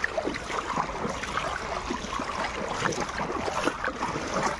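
Floodwater splashing and lapping: a steady run of small, irregular splashes as something moves through the water.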